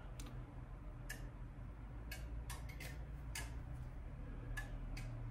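Relays in a RoeTest vacuum tube tester clicking at uneven intervals, about nine sharp clicks, as the tester switches the tube's electrodes onto its supply rails and steps the grid voltage during an automated test. A low steady hum runs underneath.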